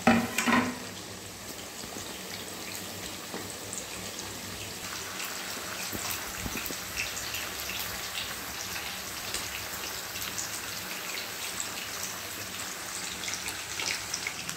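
A few knocks as fried chicken pieces are tipped into a pan of onions and capsicum, then a steady crackling sizzle as they fry and are stirred in the oil.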